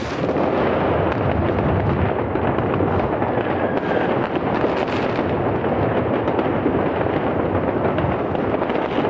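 Dense barrage of fireworks rockets and firecrackers going off all around, countless bangs and crackles merging into one continuous, steady din with no pause.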